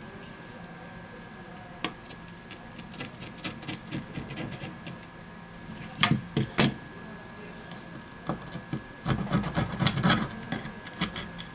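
Light clicks and taps of a smartphone's display module and metal frame being handled and worked with tweezers on a silicone mat. Two louder knocks come about six seconds in as the phone is moved, and a quick run of small clicks comes near the end as small parts are placed with the tweezers.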